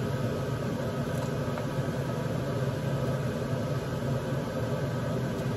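A steady hum and whir, like a fan or appliance motor running evenly, with no distinct knocks or splashes.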